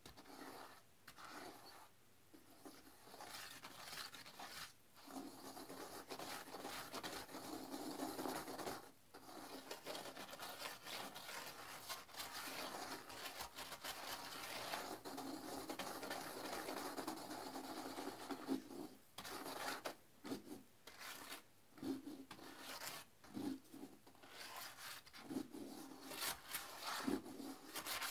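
Toilet brush scrubbing the inside of a porcelain toilet bowl through foamy cleaner suds and water: continuous wet rubbing, breaking into shorter separate strokes in the last third.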